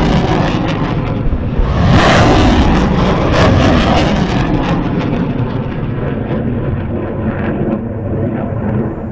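Multiple rocket launcher salvo: a loud continuous roar full of rapid crackling blasts, surging about two seconds in, then thinning to a deeper rolling rumble toward the end.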